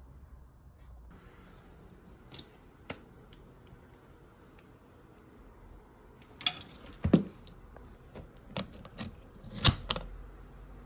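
Irregular mechanical clicks and clacks from a vintage Remington Quiet-Riter typewriter being handled: two light clicks early, then a denser uneven cluster of sharper clacks in the second half, the loudest near the end.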